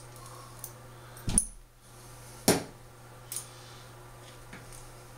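Sharp clicks and light rattles of a dog's collar and harness hardware being handled at her neck. The two loudest come about one and two and a half seconds in, with softer ones later, over a steady low hum.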